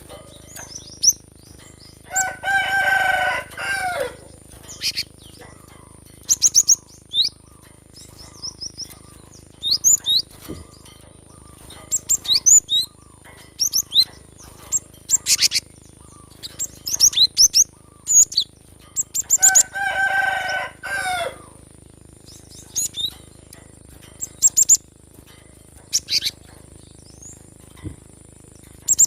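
Cinereous tit (gelatik batu) singing: bursts of short, sharp high chirps and quick trill phrases, repeated through the whole stretch. A rooster crows twice behind it, about two seconds in and again near twenty seconds, each crow lasting about two seconds.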